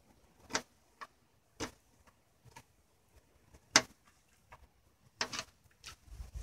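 Small kitchen knife slicing a chili pepper on a plastic cutting board: irregular sharp taps as the blade strikes the board, about one every half second to second, one much louder than the rest a little past the middle.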